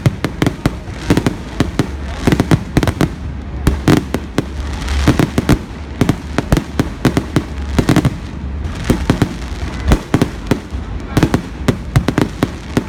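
Fireworks display: a dense run of aerial shell bursts, several bangs a second, over a continuous crackle and low rumble.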